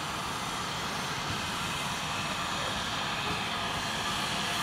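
Steam locomotive hauling coaches as it comes closer: a steady rumbling hiss that grows slowly louder.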